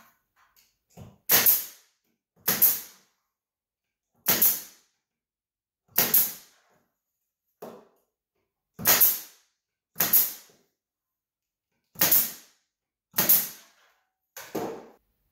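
Pneumatic nail gun firing nails into a wooden beehive frame: about nine sharp shots at uneven intervals of one to two seconds, each dying away quickly, with a few fainter clicks between them.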